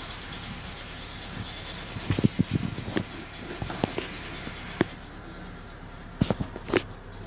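Car engine idling with a steady low hum, and scattered clicks and knocks over it, a cluster in the middle and several more near the end.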